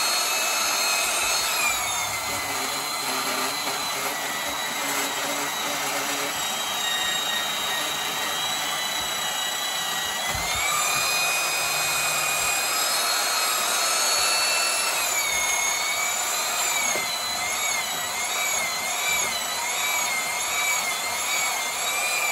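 Handheld high-speed power tool whining as it cuts into the chainsaw. Its pitch dips about two seconds in, climbs again about ten seconds in, and wavers up and down near the end.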